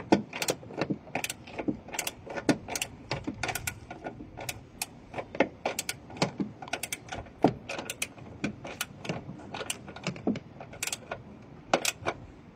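Rapid, irregular clicking and clacking, several sharp clicks a second, from hand tools and car parts being handled.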